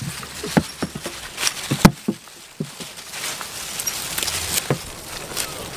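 Goats stripping leaves from leafy branches and chewing: leaves rustling and tearing, with irregular clicks and knocks, the sharpest a little under two seconds in.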